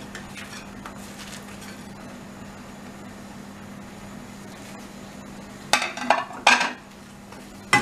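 Faint steady hiss of sauce cooking in a pan as paneer cubes are tipped in, then a few loud clinks of kitchenware against the pan about six seconds in.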